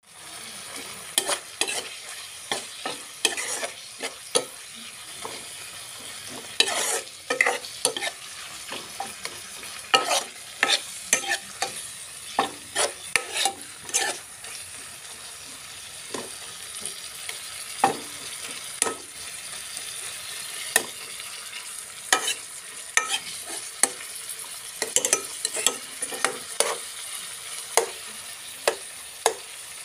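Ground meat sizzling in a nonstick pan, with a steady high hiss, while a metal spoon stirs it, scraping and knocking against the pan in irregular clicks. The knocks come in quick clusters, fewer for a stretch in the middle.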